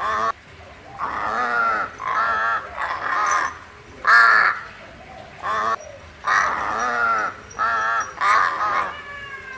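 A pet crow cawing, about nine harsh calls in a row, some short and some drawn out.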